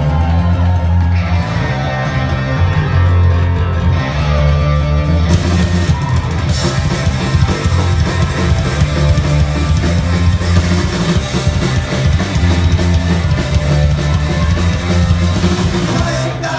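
Punk rock band playing loud, with distorted electric guitars, bass and drums. The sound grows brighter about five seconds in.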